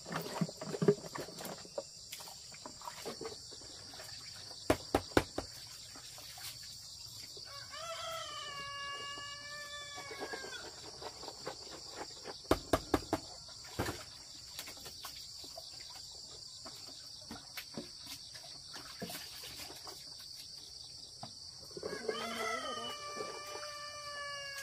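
A rooster crows twice, each crow about two and a half seconds long and some fourteen seconds apart, over a steady high insect drone. Between the crows come a few short sharp knocks of plastic jars being handled.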